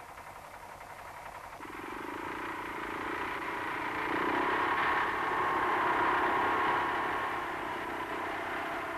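Hanomag R12 tractor's single-cylinder two-stroke engine running steadily. It comes in about a second and a half in, grows louder toward the middle and eases off a little near the end.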